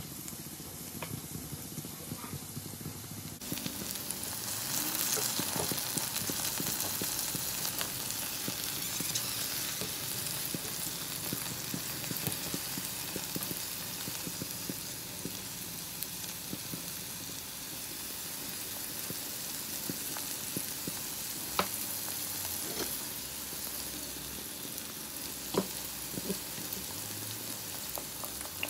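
Tofu pieces, spring onions and garlic sizzling in oil in a nonstick pan, a steady frying hiss that grows louder about three seconds in. A few sharp clicks stand out in the second half.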